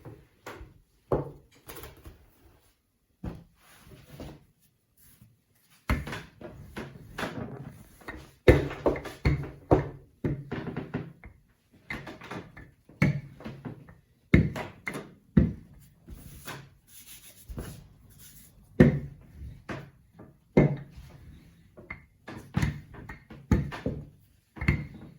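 Rolling pin rolling out dumpling dough on a floured counter: a run of irregular knocks and thumps as the pin is pushed back and forth, busier from about a quarter of the way in.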